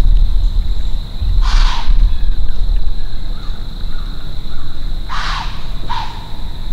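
White-tailed doe blowing: short, breathy alarm snorts, three of them, the last two close together. The deer is alarmed after winding the hunter from directly downwind. A low rumble runs underneath.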